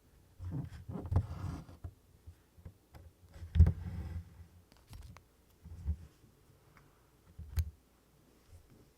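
Hand embroidery at close range: a needle pushed through 24-count Congress cloth and DMC floss drawn through it with a soft rasp. Irregular light taps and clicks come between the pulls, the sharpest about three and a half seconds in.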